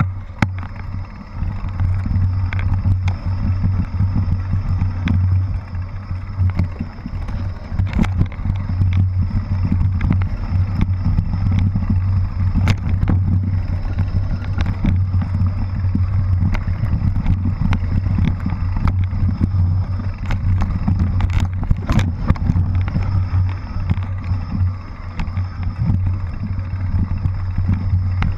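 On-board audio of a mountain bike descending a rough dirt forest trail: a steady low rumble with frequent sharp clatters and knocks as the bike rattles over roots and bumps.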